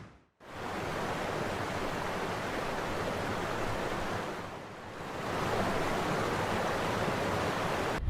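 Curug Luhur waterfall's falling water making a steady rushing noise. It cuts out briefly right at the start and dips for a moment a little past the middle.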